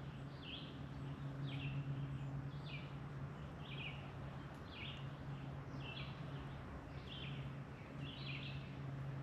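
A bird giving short high chirps over and over, about two a second, over a steady low hum and a soft background hiss.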